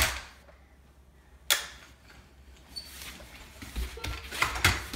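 Small plastic toy fire truck knocking and clattering as a baby pushes it along a foam play mat: one sharp knock at the start, another about a second and a half in, then a busier run of small knocks in the second half.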